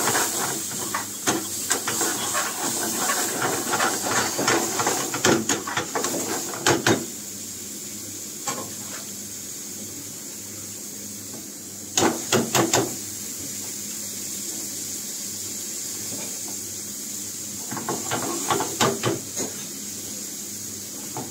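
Onion-tomato masala sizzling in a steel frying pan over a gas flame, a steady hiss. Over it, a metal ladle stirs and scrapes the pan in clattering knocks through the first seven seconds, briefly about twelve seconds in, and again near the end.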